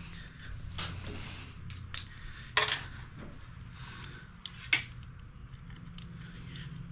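Light metallic clicks and ticks, a few sharp ones a second or so apart, from a steel inner gear-change cable being handled and drawn through its outer at the handlebar of a Serveta Jet 200 scooter.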